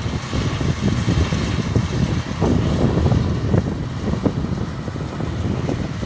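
Changfa CF805N combine harvester with a turbocharged 95 hp engine running steadily as it cuts standing rice, with wind noise on the microphone.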